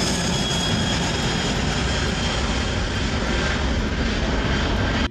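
Boeing 747SP's four jet engines running: a steady rush with a faint high-pitched whine over it.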